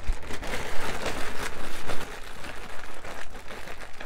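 Clear plastic bag crinkling and rustling as a hand rummages through it, with many small crackles.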